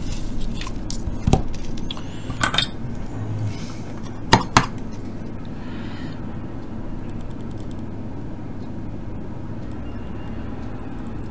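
Light clicks and metallic clinks of a soldering iron and solder being picked up and handled on a workbench, the loudest a pair of sharp clinks close together a little over four seconds in, then a steady low hum.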